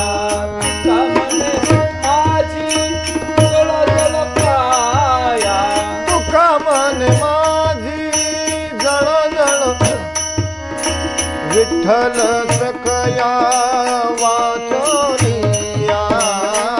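Devotional bhajan music: harmonium and tabla playing, with small hand cymbals (taal) striking a steady beat, and a voice singing long ornamented notes without words.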